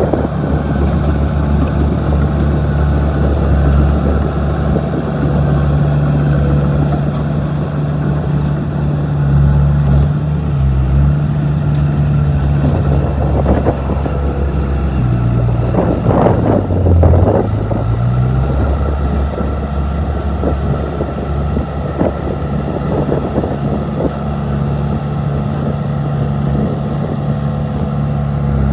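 Bulldozer's diesel engine running steadily under work, its pitch dipping briefly about two thirds of the way through and then recovering.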